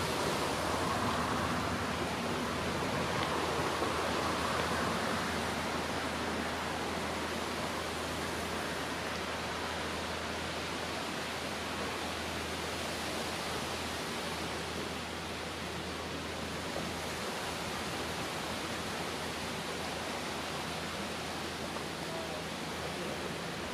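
Steady outdoor background noise, an even hiss with no distinct events, with a faint low steady hum beneath it.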